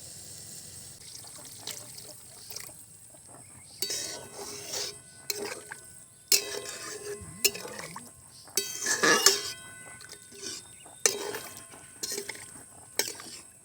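Water poured in several splashing goes into a pan of fried ridge gourd and spice paste, with clinks of the vessel.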